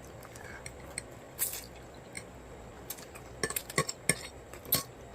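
Cutlery clinking and scraping against dishes during a meal, with a scatter of short clinks in the second half.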